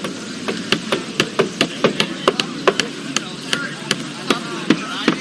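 Several hammers striking at an uneven pace, about four blows a second, over a faint background murmur of voices.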